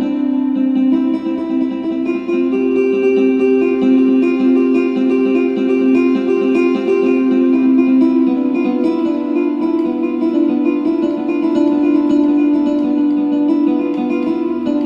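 Instrumental background music with long held notes at a steady level.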